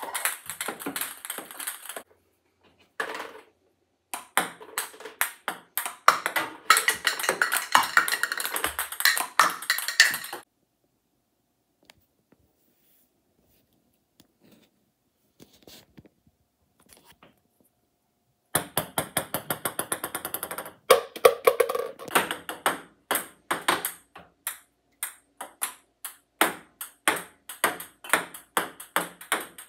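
Ping pong balls clicking against a table tennis table and paddle in quick runs of bounces, some hits ringing briefly. There is a near-silent gap of several seconds in the middle.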